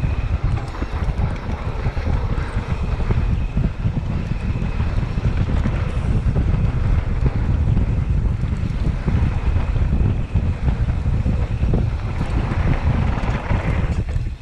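Wind rushing over the microphone of a mountain bike riding fast down a dirt trail, with a constant low rumble from the bike and tyres on the ground.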